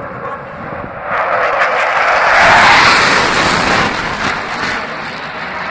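Blue Angels F/A-18 Hornet jet passing overhead: jet engine roar that builds about a second in, is loudest around the middle and then fades away.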